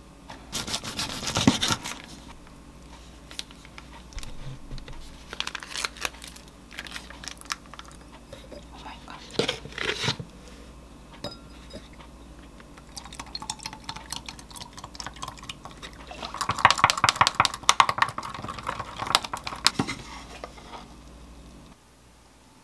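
Cardboard food packaging and items handled on a counter, a few separate rustles and knocks, then milk poured from a carton into a glass bottle of protein powder, the pouring tone creeping higher as the bottle fills.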